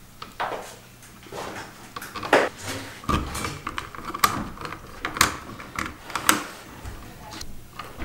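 Hands working solid copper building wire and a twist-on wire nut at a plastic electrical box: irregular clicks, scrapes and rustles as the conductors are twisted, bent and lined up in the box.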